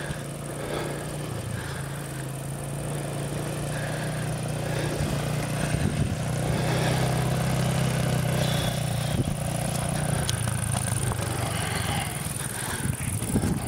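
Triton 450 supermoto's engine running steadily as the bike rides the motocross track, growing louder as it passes closest about six seconds in, then fading away.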